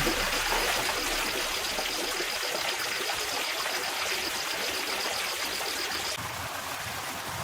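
Steady rush of running water, like a stream or water pouring, with a faint rapid high-pitched pulsing above it that stops about six seconds in.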